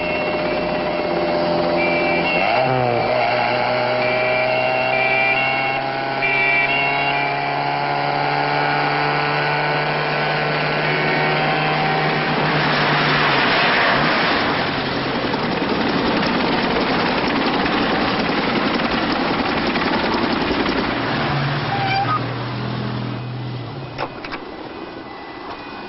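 Car engines in a film chase sequence, running hard with their pitch slowly climbing as they rev up, and a loud noisy rush about halfway through.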